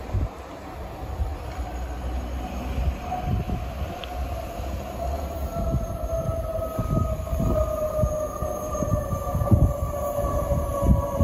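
An electric commuter train approaching the platform: a low rumble with a whine that grows louder over the second half and slowly falls in pitch.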